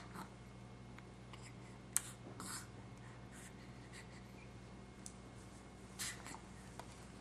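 Quiet room with a steady low hum, broken by a sharp click about two seconds in and a few brief soft rustles, near two and a half and six seconds.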